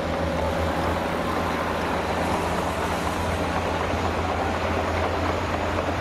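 Heavy dump truck's diesel engine running steadily with a low hum while its tipper body is raised to unload sand.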